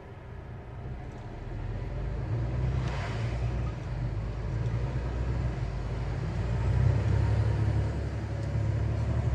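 A lorry's engine and road rumble while driving, steady and low, growing louder over the first couple of seconds. There is a brief rush of noise about three seconds in.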